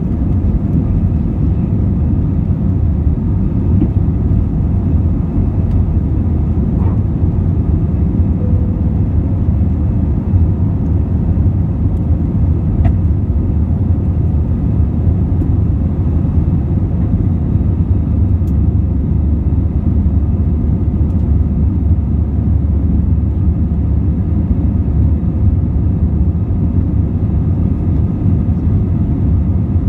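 Steady low rumble of an Airbus A320-200 passenger cabin in flight: engine and airflow noise, even and unbroken.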